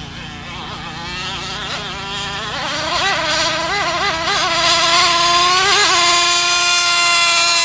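Two-stroke gas engine of a G-class RC racing boat at full throttle, its whine climbing in pitch, wavering up and down in the middle, then holding a high steady pitch and growing louder near the end.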